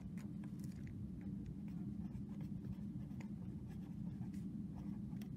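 Felt-tip pen writing on lined notebook paper: faint, irregular scratches of the pen strokes over a steady low hum.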